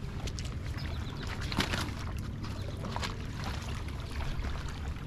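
River water sloshing and lapping against the rocky bank over a steady low rumble, with a brief splash about a second and a half in.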